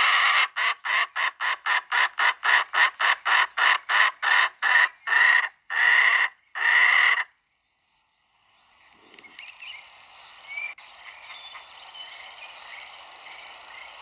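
A chicken calling loudly in a rapid run of short repeated squawks, about three a second, the last few drawn out longer. The calling cuts off abruptly about seven seconds in, leaving a quieter background with small bird chirps.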